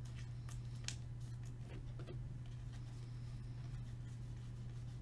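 Hockey trading cards being handled and flipped through by hand, with a few faint papery clicks and slides, mostly in the first two seconds. A steady low hum runs underneath.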